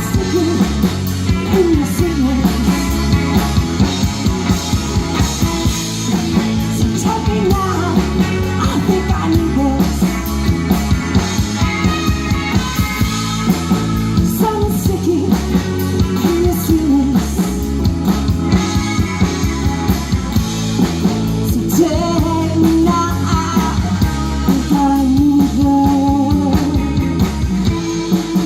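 Rock band playing live, a singer over drums and electric guitar with a steady drum beat.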